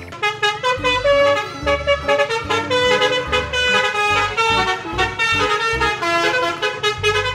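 Tour bus's multi-tone musical horn, the Indonesian 'telolet' kind, sounding a quick melody of held notes that step from pitch to pitch several times a second.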